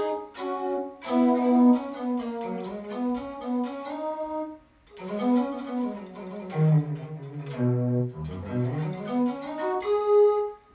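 A MidiPlus hardware MIDI sound module voicing a synthesised instrument patch, played as a melodic line from an electric guitar through a Fishman TriplePlay MIDI pickup. The line stops briefly about halfway, returns on lower notes, and slides up in pitch near the end.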